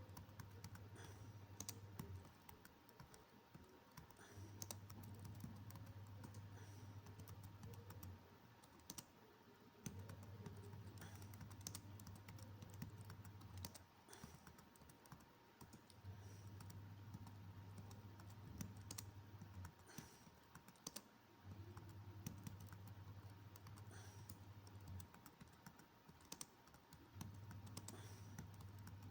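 Computer keyboard typing, keys clicking at an uneven pace, quiet. Beneath it a low hum comes and goes every few seconds.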